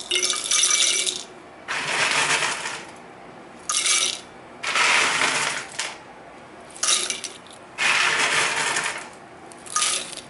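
Handfuls of dried ark clam meat dropped into a stainless-steel grinder bowl, clattering against the metal in seven bursts of a second or so, the shorter ones with a metallic ring.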